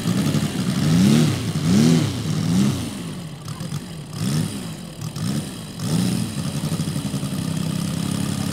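Radial engine of a large scale model Yak-55M being blipped on the throttle as the model taxis on grass: about seven short rises and falls in pitch, then a steady idle from about six seconds in.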